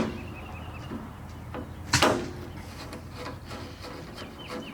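A large Phillips screwdriver working the stripped screws of a truck door latch: scraping and rubbing of metal on metal, with a sharp knock about two seconds in.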